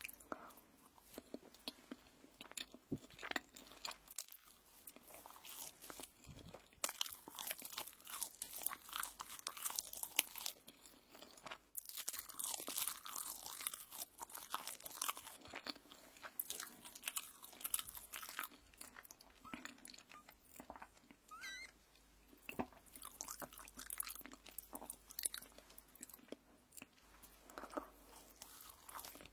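Close-miked eating of crisp toast: irregular crunchy bites and chewing, steady throughout with a couple of brief pauses.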